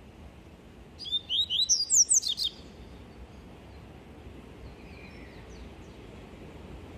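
Caged papa-capim (a Sporophila seedeater) singing its 'tui tui' song: one quick phrase of rapid, sweeping high notes about a second in, lasting about a second and a half. A few faint notes follow a few seconds later.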